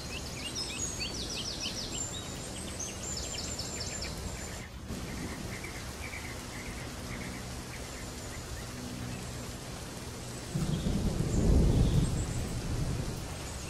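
Steady noisy ambience with short high chirps in the first few seconds, and a low rumble that swells about ten and a half seconds in, peaks about a second later and fades before the end.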